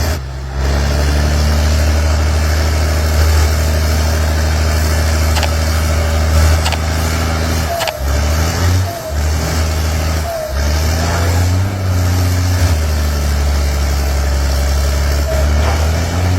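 Excavator's diesel engine running hard as it pushes against a tree. The low engine note dips and climbs back twice around the middle as the load changes. A few sharp snaps sound shortly before the dips.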